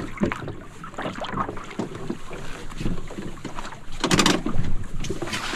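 Water splashing and lapping around a small sailing canoe as it is rowed under sail, with wind on the microphone. There is a louder burst of noise about four seconds in.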